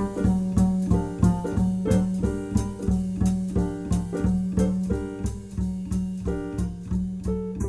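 Instrumental background music with a steady beat of short plucked and struck notes.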